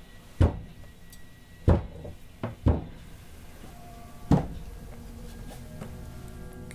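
Knocking: four loud, dull knocks and a lighter one just before the third, unevenly spaced over about four seconds, with faint held tones behind.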